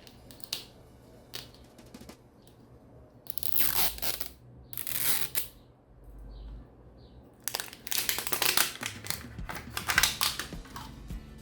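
Plastic packaging crinkling and tearing as it is opened by hand, in short bursts about three and a half and five seconds in, then a longer stretch of rustling from about seven and a half to eleven seconds.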